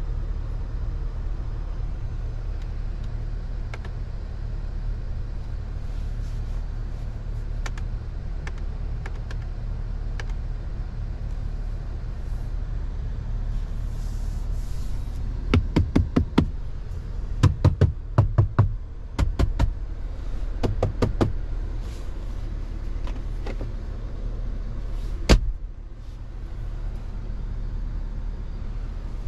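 2023 Chevrolet Tahoe Premier on the move, heard from the driver's seat: a steady low drone of road and engine noise. About halfway through there is a burst of irregular sharp knocks and clicks, and a few seconds later one louder thump, after which the drone is a little quieter.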